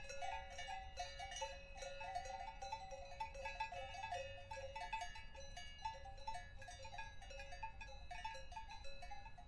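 Several cowbells clanking irregularly, their strikes overlapping at a few different pitches in a constant jangle.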